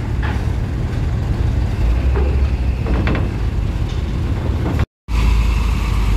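Coach bus diesel engine rumbling low as the bus crawls up a ferry's loading ramp. About five seconds in the sound cuts out for a moment, then heavy truck and bus diesel engines run close by.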